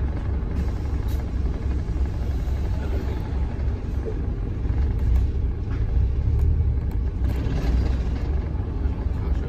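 Steady low rumble of a Wright Gemini 3 double-decker bus driving along, engine and road noise heard from inside the cabin.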